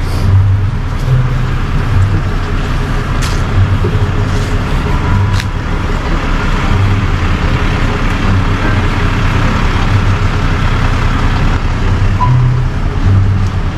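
Tow truck's engine running at low speed as it creeps forward pulling a food truck on its wheel-lift. It is a steady low rumble heard close behind the truck, with a couple of sharp clicks.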